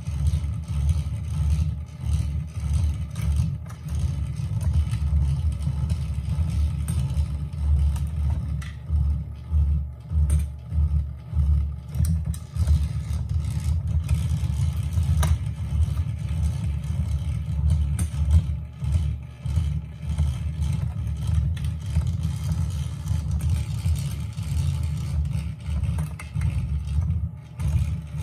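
Battery-powered 'Gone Fishin'' rotating fishing game running: the motor and gears turning the board make a steady low rumble that pulses unevenly, with a few light plastic clicks from the rod and fish.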